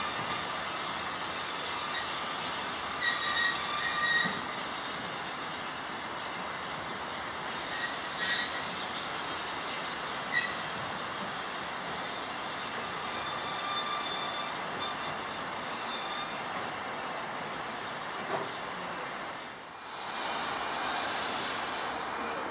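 Steam locomotive and wagon rolling slowly on curved track, the wheel flanges squealing in short high bursts several times over a steady rumble. Near the end, after a break, a steady hiss of escaping steam.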